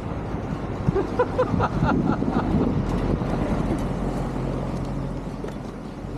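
Wind buffeting the microphone with a vehicle running, a steady low engine hum coming in about two-thirds of the way through, and a few short pitched chirps about a second in.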